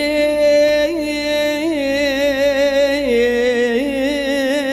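Male singer holding a long melismatic note in an Arabic-style mawwal, wavering with vibrato and small ornamental turns, then stepping down in pitch about three seconds in.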